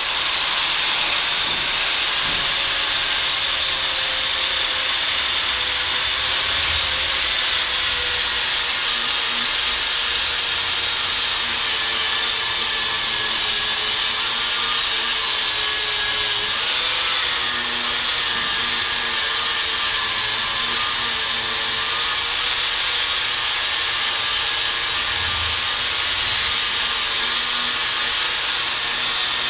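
Angle grinder running steadily on the steel end of a tractor lift arm, a continuous whine with a brief dip in pitch a little past halfway as it is pressed into the metal.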